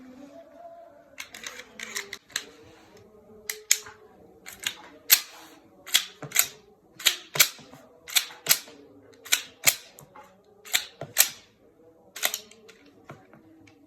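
Sharp metallic clicks of a Darra-made 30 bore pistol being handled, about twenty of them, many in quick pairs, as it is worked in reloading rather than fired.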